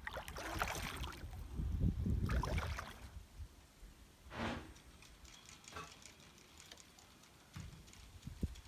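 Canoe paddle strokes splashing in lake water, twice in the first three seconds, over the low rumble of wind on the microphone. A short swish follows about four and a half seconds in, and then it is quieter until the wind rumble returns near the end.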